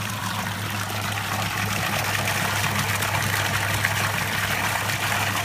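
Water from the outlet pipe of a Deepwater BLDC 12000 pump running at full power, pouring and splashing steadily into a full tub of water, with a steady low hum underneath.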